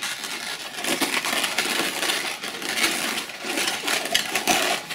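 Inflated latex twisting balloons squeaking and creaking as hands squeeze and press the twisted bubbles together: a dense run of rubbing squeaks and crackles.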